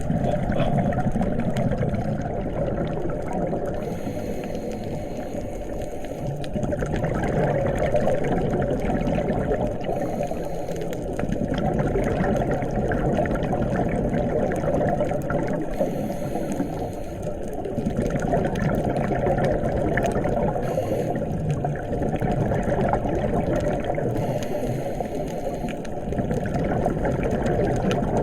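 Muffled underwater noise picked up by a camera on a scuba dive: a steady low water rush, with a brief hissing swell every several seconds, typical of a diver's exhaled bubbles.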